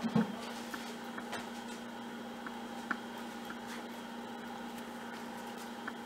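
Steady low electrical hum of a quiet garage, with one dull knock just after the start as the box's plywood lid is handled, followed by a few faint clicks.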